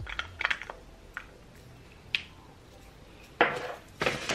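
A small cosmetic jar and its cardboard box being handled: a few light clicks and taps, then two short bursts of rustling near the end.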